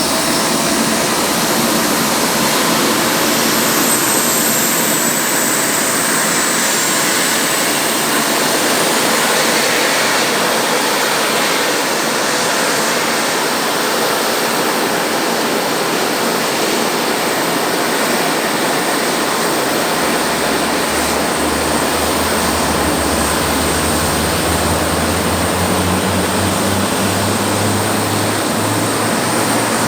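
Boeing F/A-18 Super Hornet jet engines (General Electric F414 turbofans) running steadily, a loud turbine rush with a high whine. A low hum joins about two-thirds of the way in.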